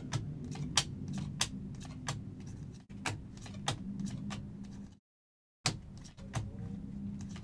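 Donruss Optic football trading cards being flipped through by hand, one after another: a string of short card clicks and snaps at irregular intervals over a low steady hum. The sound cuts out completely for about half a second about five seconds in.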